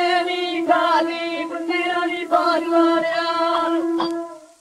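Punjabi devotional folk song played from an old 78 rpm shellac record: a melody moving over a steady held drone note. It fades out just before the end.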